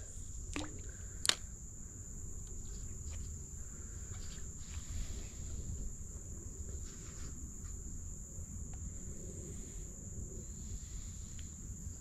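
Insects trilling steadily at a high pitch over a low rumble, with one sharp click about a second in.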